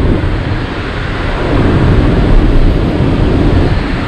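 Light rail train running, heard from inside the passenger car: a steady low rumble and rush of wheel and track noise as it pulls into a station.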